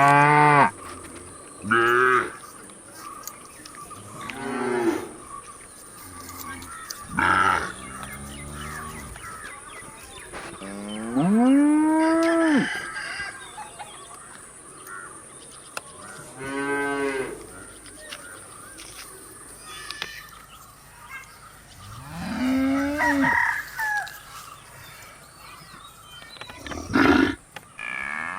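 Cattle mooing repeatedly: about eight separate moos of different lengths, some short and some drawn out. The longest comes about halfway and rises then falls in pitch.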